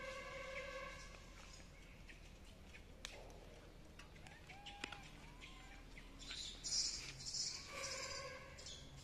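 Faint birdsong, with a bright cluster of high chirps from about six seconds in to the end. A held tone with a clear pitch sounds briefly at the start and again near the end.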